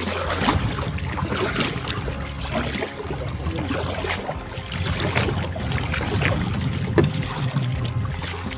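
Water splashing and rushing along the bamboo outrigger float of a moving boat, with wind on the microphone.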